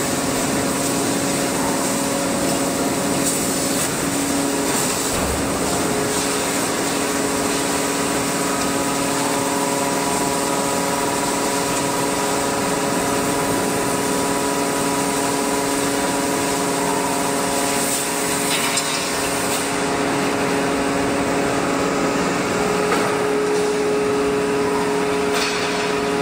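Large forging press and its hydraulic machinery running during hot forging of a steel dish head: a steady machine hum with a few held tones that shift slowly, over a constant hiss.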